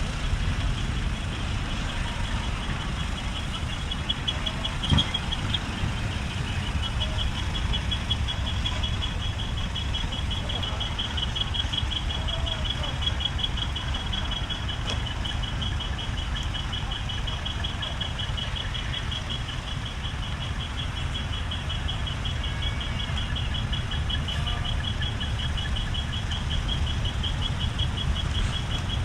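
Steady low rumble of truck engines idling, with a rapid high-pitched pulsing beep that starts about four seconds in, breaks off briefly, then keeps going.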